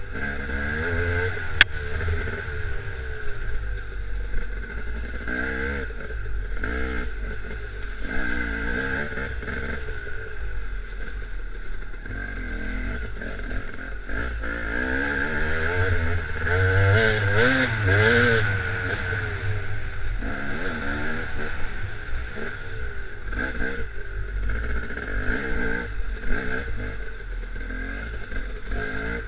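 Dirt bike engine revving up and down again and again as it is ridden over a trail, its revs climbing highest about halfway through. A single sharp knock comes about a second and a half in.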